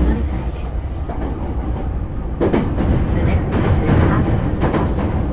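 Running sound of a JR East E231-0 series electric train heard from inside the car: a steady rumble of wheels on rail. From about halfway through, the wheels click over rail joints in pairs.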